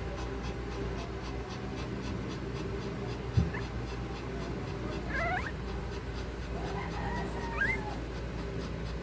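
A few short, high-pitched Shih Tzu whimpers, around the middle and near the end, over a steady low hum, with a single dull thump about a third of the way in.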